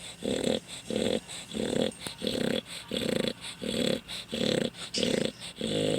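A sleeping dog snoring loudly in a steady rhythm, about two snores a second.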